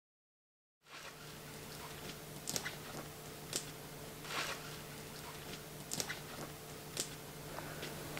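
Footsteps crunching over dry twigs and needles on a forest floor, with scattered sharp twig snaps, over a steady low hum; the first second is silent.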